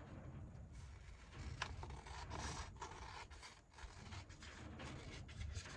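Paper being handled by hand: irregular rubbing, scraping and crinkling with small clicks as a sheet is worked and creased.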